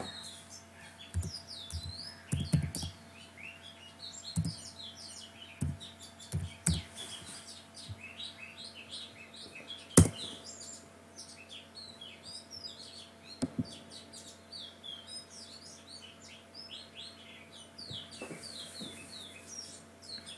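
Many birds chirping without pause in short, quick, high chirps, over a faint steady hum. Through the first half come scattered computer keyboard and mouse clicks, the loudest one sharp click about ten seconds in.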